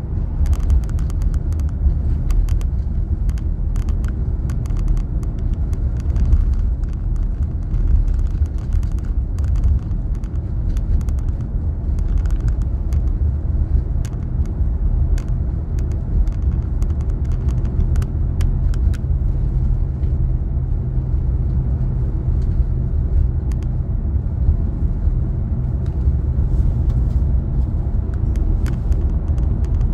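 Steady low road and engine rumble of a moving car, heard from inside the cabin, with scattered faint clicks or ticks, most of them in the first half.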